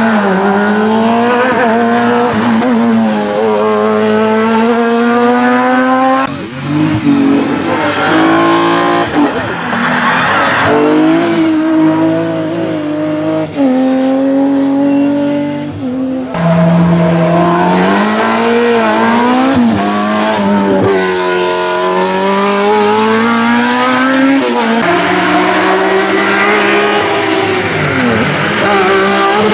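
Hill-climb race car engines at full throttle, including BMW 3 Series saloons, several cars passing one after another. Each engine's revs climb through the gears and drop at every upshift.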